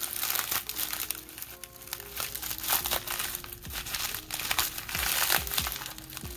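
Thick bubble wrap crinkling and crackling as hands pull and peel it open, in many quick irregular crackles. Quiet background music with a simple stepping melody plays underneath.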